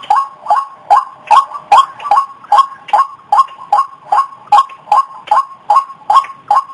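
White-breasted waterhen calling, a harsh call repeated in an even rhythm of about two and a half calls a second.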